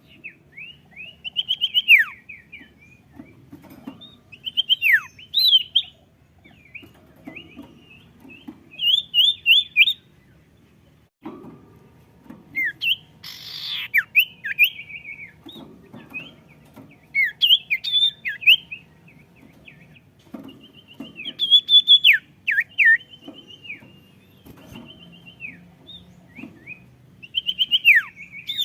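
Sirtu songbird singing energetically in short, varied phrases of rapid chirps and sharp downward-sweeping whistles, a burst every second or two, with answering calls mixed in. A brief hiss comes about halfway through.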